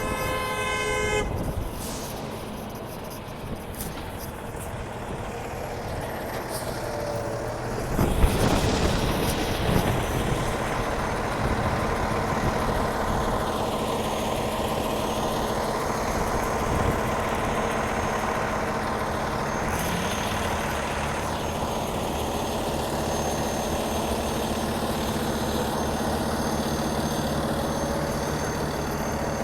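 A car horn sounds one short honk at the start, followed by road traffic noise. About eight seconds in, a heavy truck engine comes up loud and keeps running steadily.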